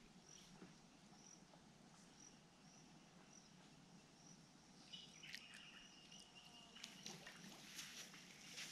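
Faint outdoor ambience: a high insect chirp repeating about twice a second, then a thin steady note for about two seconds midway. Near the end come soft footsteps of bare feet wading in shallow water.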